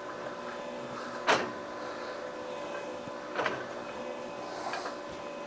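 Three sharp knocks from the steel welding cart and floor jack being handled as the cart is set back down on its wheels. The first, about a second in, is the loudest, and the last is softer. A steady hum runs underneath.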